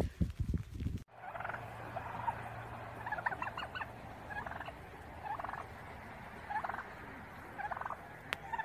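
Domestic turkey gobbling at its own reflection, with the tail fanned in display: about eight short, rattling gobbles, roughly one a second. A few loud thumps, from a cockatoo's flapping wings, come in the first second, before the gobbling starts.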